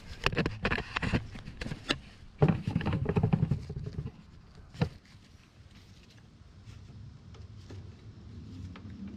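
Clicks, knocks and rubbing of a Briggs & Stratton plastic carburetor and its hose being worked back onto the engine's intake by hand, busiest in the first four seconds, with a single sharp knock about five seconds in and only faint ticks after.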